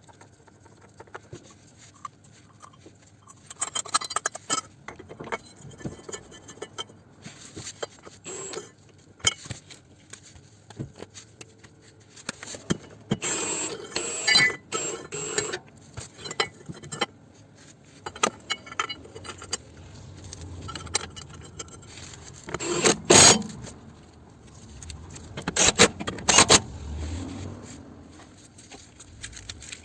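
Metal hand tools, sockets and a ratchet, clinking, clattering and scraping as bolts are worked by hand. There are scattered clicks throughout, a louder clatter a little before halfway, and two loud bursts near the end.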